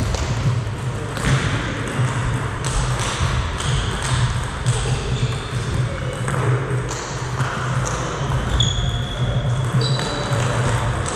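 Table tennis ball clicking as it bounces on the table and is struck by bats, in a serve and rally, with short shoe squeaks on a wooden hall floor near the end. A low steady hum runs underneath.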